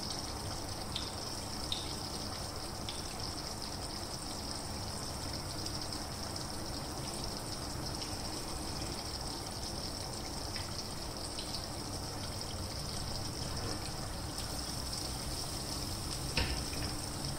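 Hot ghee sizzling with black pepper in a small frying pan on a gas burner: a steady hiss with a few faint ticks.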